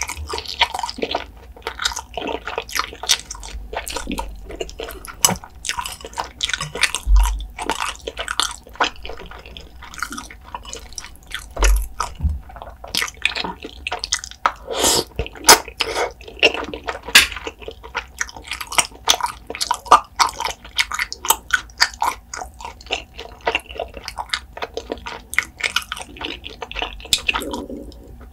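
Close-miked wet chewing and slurping of saucy cheese carbonara Buldak noodles: a dense, uneven run of sticky mouth clicks and smacks, with a noodle slurp about halfway through.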